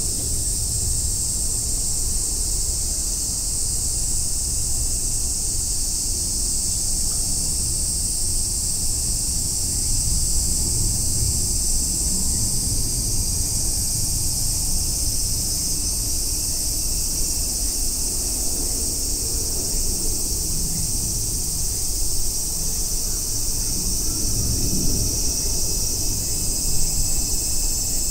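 A steady, high-pitched chorus of cicadas singing without a break, over a low rumble.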